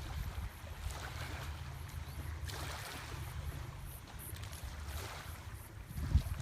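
Wind buffeting the phone's microphone as a low rumble, over a faint hiss of small waves rippling on the bay shore. A brief louder bump near the end.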